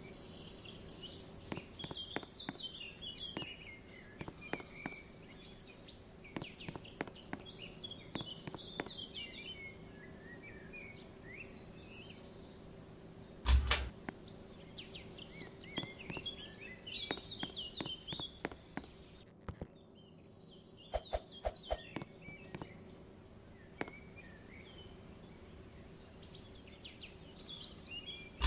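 52-inch ceiling fan running with a steady motor hum, while birds chirp throughout. Scattered clicks are heard, and there is one loud thump about halfway through.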